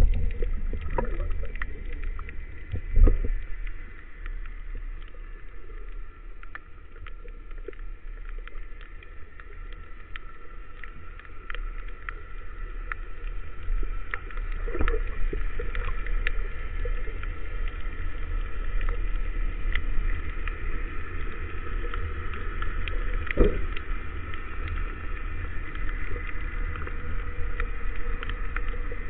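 Underwater ambience heard through a speargun-mounted camera housing: a steady low rumble of moving water with scattered faint clicks and crackles. There is a dull thump about three seconds in and softer ones later.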